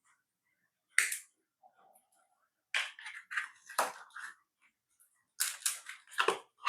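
Sharp clicks and clatter of small objects being handled on a workbench, with a single click about a second in and two busier runs of clicking later.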